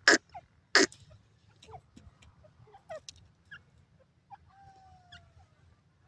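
Grey francolin giving two loud, harsh, clucking notes in the first second, then faint short chirps and a thin falling whistle from birds about halfway through.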